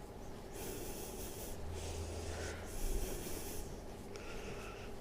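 Two slow, airy breaths, each about a second long, one after the other.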